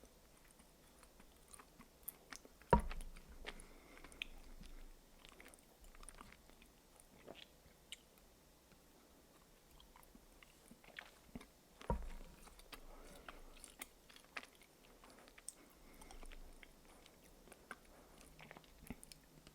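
Close-miked biting and chewing of the milk-chocolate shell of a giant Kinder Surprise egg. Two sharp cracks of the chocolate breaking, about nine seconds apart, with soft chewing and small mouth clicks around them.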